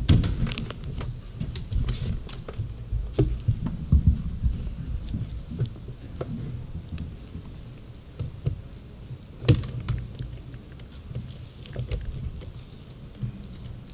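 Scattered clicks and knocks of a laptop being handled and typed on at a lectern, picked up by the lectern microphone, over a low rumble. One louder knock comes about nine and a half seconds in.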